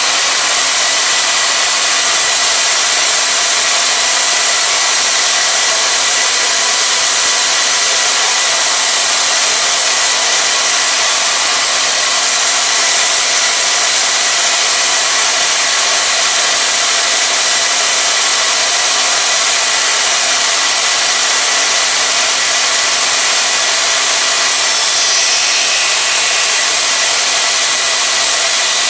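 Electric power saw running steadily as it cuts along a wooden board: a loud, even motor noise with a faint constant whine.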